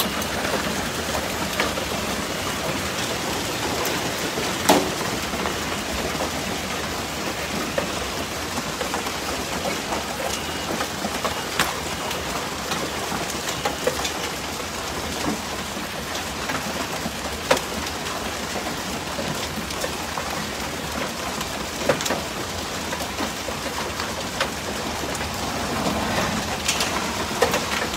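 Hail falling steadily on grass, pavement and the street: a dense, even hiss with scattered sharper clicks of stones striking hard surfaces.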